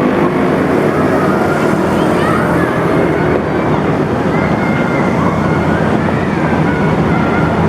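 Bus with a multi-tone 'basuri' telolet horn sounding short melodic notes, faint against steady loud engine and street noise.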